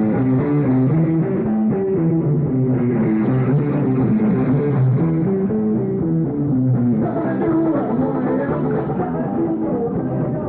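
Rock band playing live: guitar with a drum kit, a steady run of changing notes and no singing.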